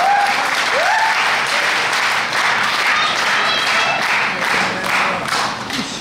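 Arena crowd applauding steadily, with two short rising shouts in the first second.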